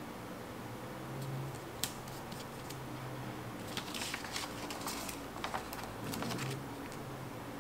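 Sticker paper being handled over a planner page: a single crisp tick about two seconds in, then a spell of light rustling and clicking about four to six seconds in, over a faint low hum.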